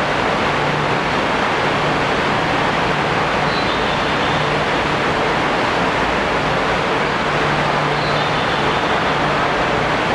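A Nagoya City Subway train running: a steady rushing noise with a faint low hum that comes and goes.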